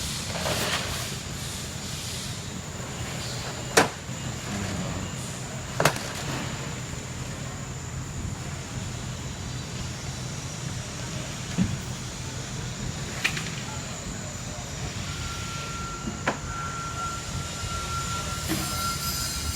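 Steady low rumble of a small locomotive heard from inside the cab as it runs, broken by several sharp knocks. About fifteen seconds in, a steady high-pitched squeal starts and holds.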